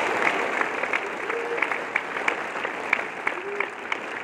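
Audience applauding: a dense patter of many hand claps that thins out near the end.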